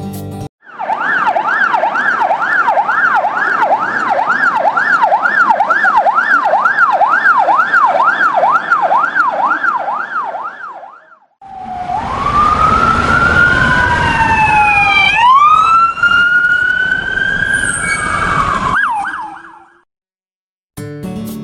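Ambulance siren in a fast yelp, rising and falling about twice a second. After a short break it switches to a slower wail that glides up and down, ending in a quick warble.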